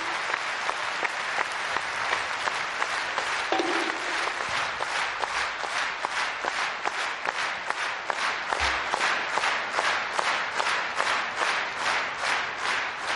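Large audience applauding, the clapping soon falling into unison at about three claps a second.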